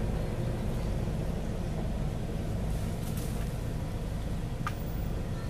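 A steady low rumble of background noise, with a brief faint high note near the end.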